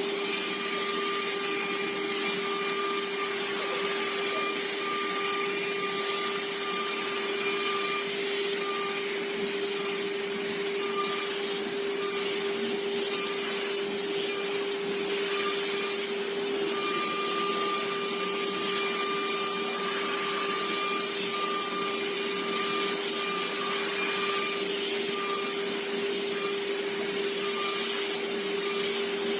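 Small CNC machine running: a steady motor whine with hiss, and a higher-pitched whine that comes and goes.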